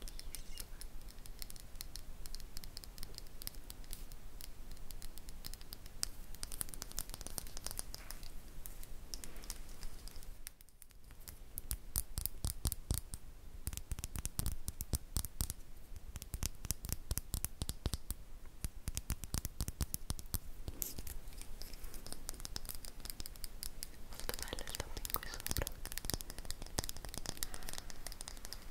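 Brush bristles rubbed quickly over the microphone: dense, rapid scratchy brushing, with a brief lull about eleven seconds in.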